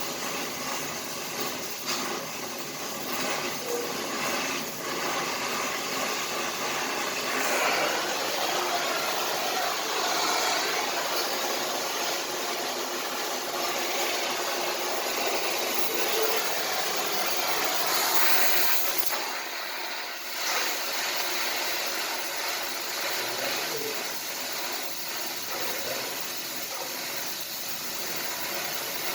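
Electric arc welding: the arc's steady hiss, which breaks off briefly about two-thirds of the way through and then resumes.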